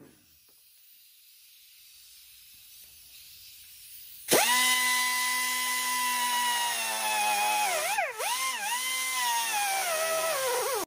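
A hand-held rotary cut-off tool with a small abrasive cutting wheel starts up about four seconds in and runs at a high, steady whine. Its pitch sags twice as the wheel is loaded, then settles again.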